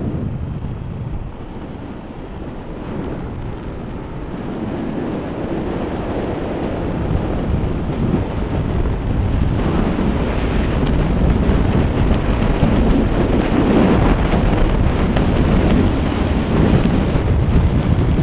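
Wind buffeting the microphone of a cyclist's on-board camera while riding in a bike race, a steady rumbling rush that gradually gets louder.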